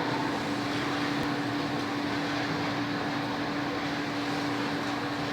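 Lumpia (spring-roll) wrapper machine running steadily, an even mechanical noise with a constant hum.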